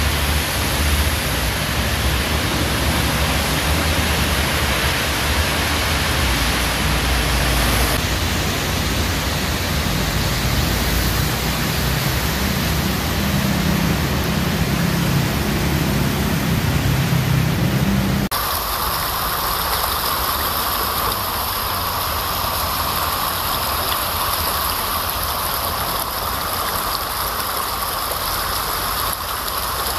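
Heavy rain and flood water streaming through streets, a loud steady rushing hiss. Its character changes abruptly about 8 and 18 seconds in, with a low rumble under it before the second change.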